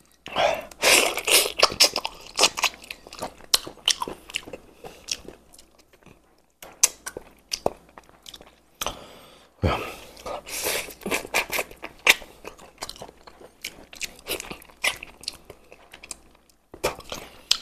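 Close-up eating of braised chicken heads: wet sucking and chewing with crunching and many sharp mouth clicks. The loudest bursts come about half a second in and again around ten seconds in, with brief pauses around six and nine seconds.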